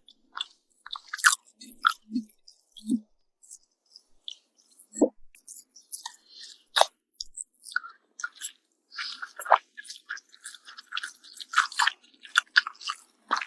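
Close-up chewing of fried egg and fried bacon, with irregular crisp crunches and crackles.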